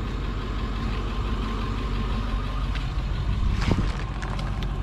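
Vehicle engine idling steadily, with one brief sharp sound about three and a half seconds in.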